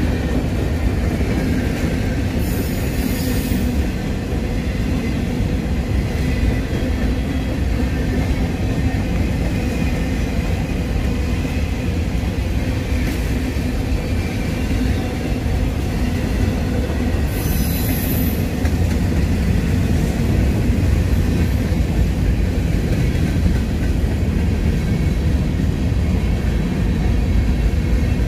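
Freight train cars rolling past on the track: a steady, loud rumble of wheels on rail, with two brief high hisses, one a few seconds in and another about two-thirds of the way through.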